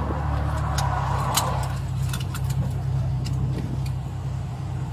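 Vehicle engine running, heard from inside the cabin as a steady low hum, with scattered light clicks and rattles.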